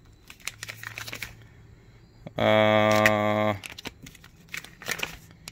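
Clear plastic sleeve pages of a ring-bound resistor binder crinkling and clicking as they are flipped by hand. About halfway through, a man's voice holds a drawn-out 'uhh' for about a second.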